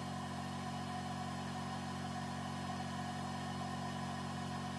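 Steady electrical hum and whir from a power inverter running under a load of about 470 watts, drawn from a nearly discharged 12 V lithium iron phosphate battery. The hum holds at one even pitch with no change.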